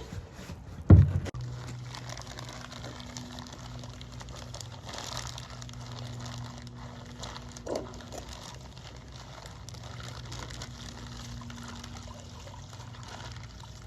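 Gasoline sloshing and dribbling as an oiled foam dirt-bike air filter is washed in a bowl of gas. A loud knock about a second in and a smaller one near eight seconds, over a steady low hum.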